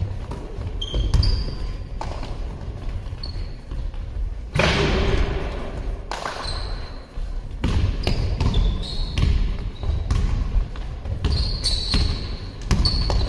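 Basketball game on an indoor court: the ball bouncing on the hall floor with repeated thuds, short high squeaks of sneakers on the court, and a longer rush of noise about four and a half seconds in, all echoing in a large sports hall.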